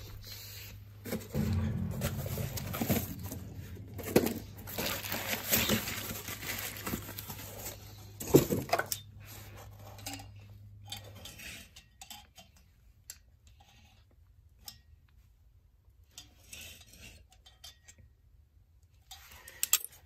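Metal hand tools and copper tubing being handled, with scattered clinks and knocks over a steady low hum. The hum and handling stop about halfway through, leaving near silence broken by a few faint ticks.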